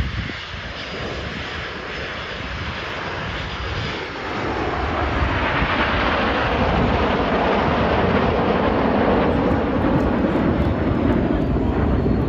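A nine-ship formation of BAE Hawk T1 jet trainers flying past with their jet engines running. The jet noise is a steady rush that swells about four seconds in and stays loud as the formation passes close.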